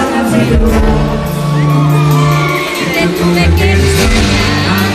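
Live Mexican banda-style music: a tuba holding long low notes under brass and drums, with a man singing and whoops from the crowd.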